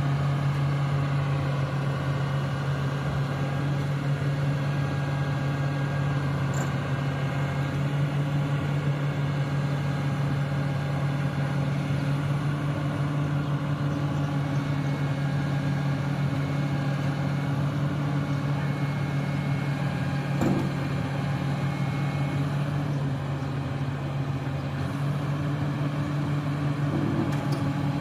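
Komatsu PC300 LC hydraulic excavator's diesel engine running at a steady pitch while the machine works its boom and bucket. A single short knock comes about two-thirds of the way through.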